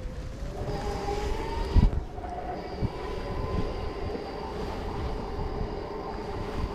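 Electric-assist bike's motor whining in several steady tones, one rising slowly in pitch about a second in, over the low rumble of tyres on the paved path. A knock about two seconds in.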